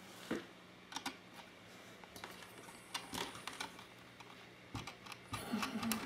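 Faint, scattered small clicks and taps of fingers handling the parts and ribbon-cable connector inside an opened mini PC, over a low steady hum.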